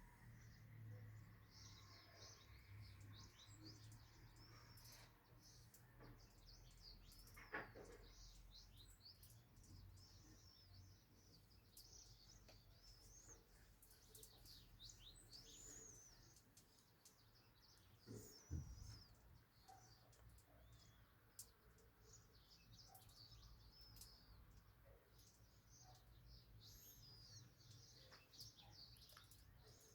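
Small birds chirping and twittering faintly, many short high calls overlapping throughout, with a soft knock about a quarter of the way in and a low thump a little past halfway.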